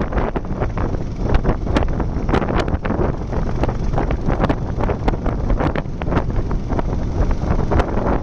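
Heavy wind buffeting the microphone of a motorcycle riding at road speed: a continuous low rumble broken by frequent irregular crackling pops.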